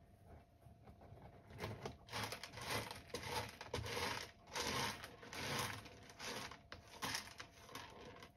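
Cat scratching and raking pellet litter in a litter box, covering its waste: a series of scratchy, rustling strokes that start about two seconds in and die away near the end.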